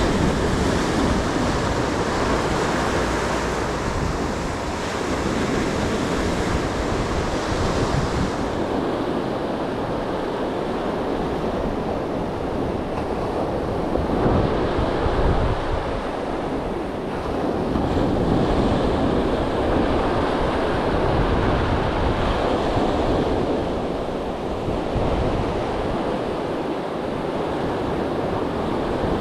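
Sea surf washing onto the shore: a steady rushing wash that swells and eases every few seconds, with wind rumbling on the microphone.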